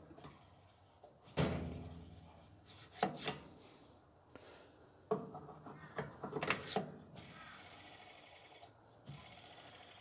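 Scattered knocks, clunks and scrapes of metal being handled inside an open clothes dryer cabinet, with a cluster of them a little past the middle.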